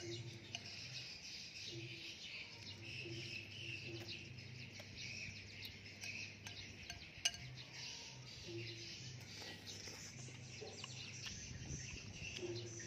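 Many small birds chirping continuously, with a low hum underneath and a single sharp click about seven seconds in.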